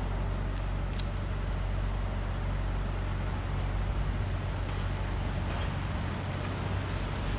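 Road traffic on a city street: a motor vehicle's engine running with a steady low drone, with a few faint clicks over it.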